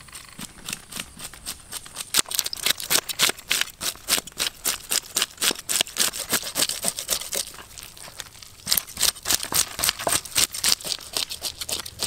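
Knife scraping the scales off a large fish: quick rasping strokes, about five a second, with a short pause about two-thirds of the way through.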